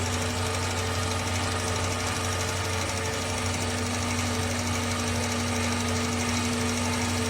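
A 2023 Keystone Cougar travel trailer's electric auto-leveling jack motors running steadily, a constant hum with a steady whine, as the jacks work to level the trailer.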